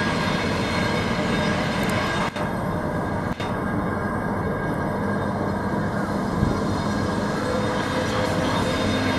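Train running on the rails: a steady rumble with a low hum, and a short thump about six seconds in.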